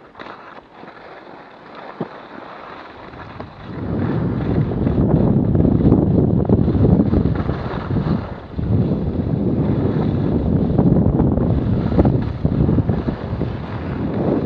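Wind buffeting an action camera's microphone as a skier picks up speed downhill, mixed with the skis sliding over packed snow. It is fairly quiet for the first few seconds, then becomes a loud, steady rumbling rush about three and a half seconds in, easing briefly near the middle.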